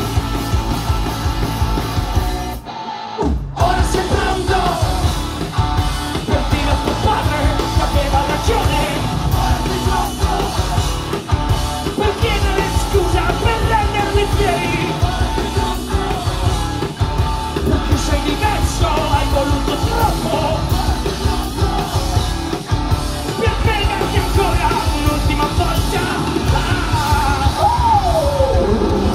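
Live rock band playing with distorted electric guitars, bass, drums and vocals. The band cuts out briefly about three seconds in and crashes back in, and a note slides downward near the end.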